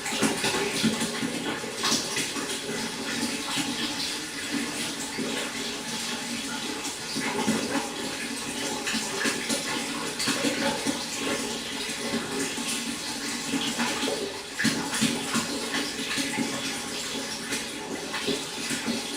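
Running water splashing and trickling steadily into a pond, with many small irregular splashes.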